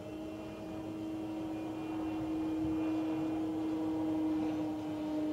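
Engine of an ESM Beaver RC scale model airplane in flight, running at a steady pitch at what the flyers call full throttle. It grows louder as the plane comes closer.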